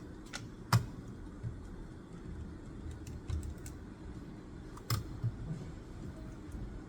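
Scattered sharp clicks and taps of desk work, the two loudest about a second in and again near five seconds, over a low steady hum.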